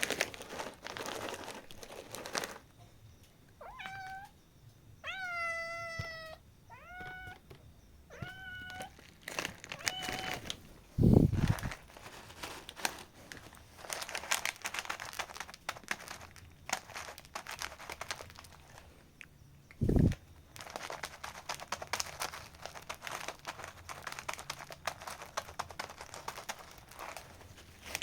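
A cat meows about five times in a row, one call longer and slightly falling. After that comes a long stretch of rapid crunching and crackling as it eats. There are two dull thumps, one near the middle and a louder one before it.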